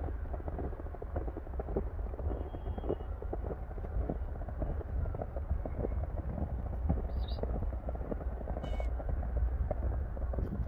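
Footsteps crunching and squeaking in fresh, deep snow as someone walks, over a steady low rumble of wind on the microphone.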